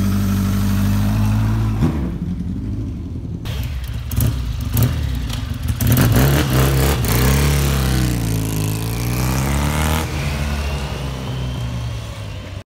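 Motorcycle engines running close by, idling and then being revved, the revs rising and falling several times in the second half. The sound cuts off suddenly just before the end.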